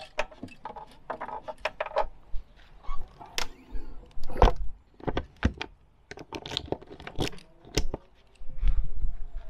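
Keys jangling with a run of sharp metallic clicks and knocks: the motorhome's gas locker being unlocked and opened to turn on the gas bottle.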